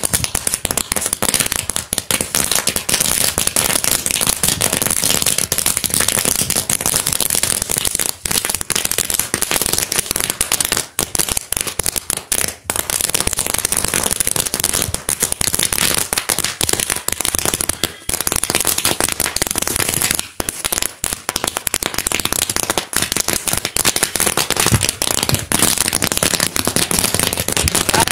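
A large mass of toy roll caps going off together: a dense, continuous crackle of rapid pops with no pauses, dipping briefly a few times.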